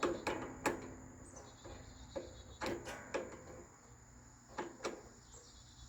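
A handful of sharp clicks and knocks, several in the first second and more around the middle, over the steady high trill of crickets.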